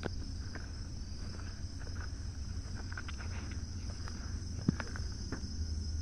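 Night insects chirring in a steady, continuous high-pitched drone, over a low rumble on the microphone, with a few light clicks and one sharper tick about two thirds of the way through.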